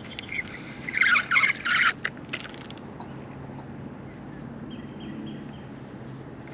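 A bird's harsh calls: a quick series of loud, rasping notes about a second in, over a faint steady low hum.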